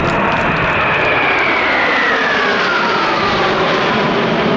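Jet engines of a formation of Sukhoi Su-35S fighters, each with twin AL-41F1S afterburning turbofans, flying past. A loud, steady rushing noise with a high whine that falls steadily in pitch as the jets go by.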